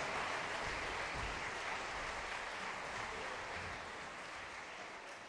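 Concert-hall audience applauding, gradually fading out.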